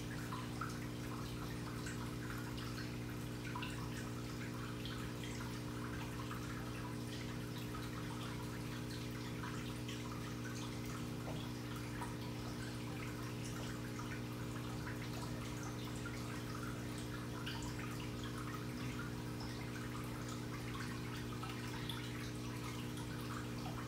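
A steady low hum of several even pitches, with scattered faint ticks and crackles over it.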